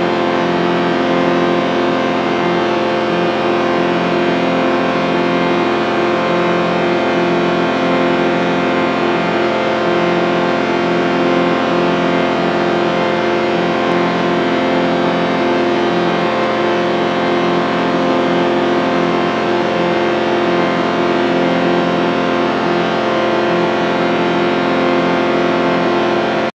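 A sustained chord sound effect: many tones held together in one steady, unchanging drone with a slight regular wobble, like a heavily distorted, effected chord.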